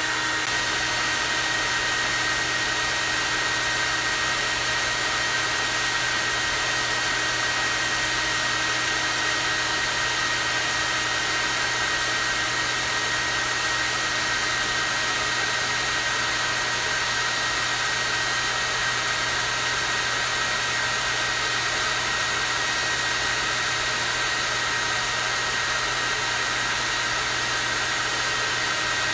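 Hair dryer running steadily on its high, strong-airflow setting: an even rush of air with a steady high whine from the motor.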